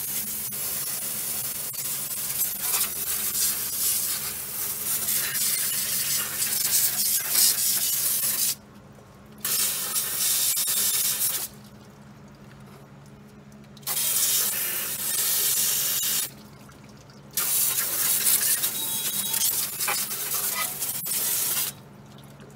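Water hissing from a garden-hose spray nozzle aimed into a car's wheel well, rinsing the suspension and brake parts. The spray runs in four spells and stops briefly three times in the second half.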